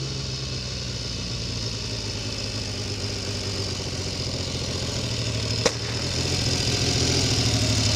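Triumph Trident T160's 750 cc three-cylinder engine running at low revs as the motorcycle rides slowly closer, gradually growing louder. A single sharp crack sounds about three-quarters of the way through.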